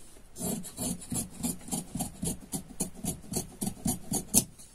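Large tailor's shears cutting through folded cloth, the blades closing in a steady run of crunching snips about four times a second, with one sharper, louder snip near the end.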